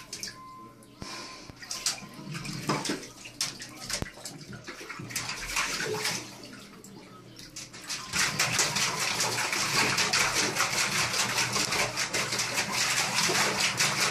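Dog pawing and splashing in shallow bathwater, claws scraping the bathtub: scattered splashes and scrapes at first, then about eight seconds in a fast, continuous run of splashing strokes.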